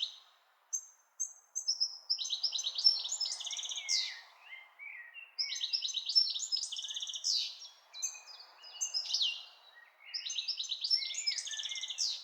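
Songbirds singing: phrases of rapid high chirps and trills a few seconds long, broken by short pauses.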